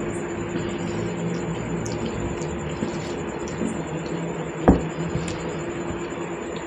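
Wet squishing of a hand mixing watery rice, dal and mashed potato on a plate while eating, over a steady low hum. One sharp knock about two-thirds of the way in.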